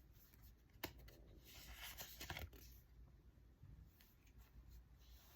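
Faint handling of a tarot deck: a single sharp tap a little under a second in, then a soft rustle of cards sliding as one is drawn.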